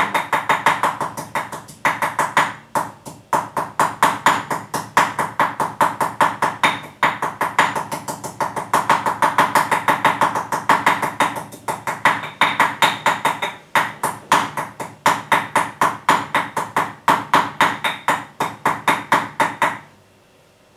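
Pestle pounding bird's eye chilies in a stone mortar: quick, steady strikes, several a second, with a few short pauses, stopping shortly before the end.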